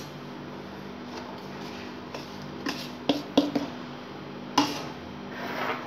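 A metal spoon clinking a few times against an aluminium bowl as flour is spooned in, with a sharper knock about four and a half seconds in followed by a soft rustle of flour.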